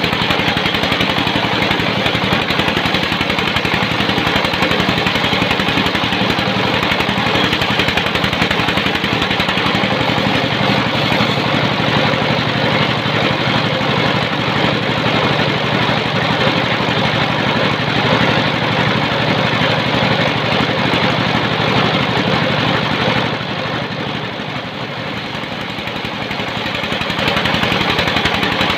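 Sawmill machinery running: a rapid, even engine beat under a dense steady noise. It drops a little in level for a few seconds near the end, then comes back up.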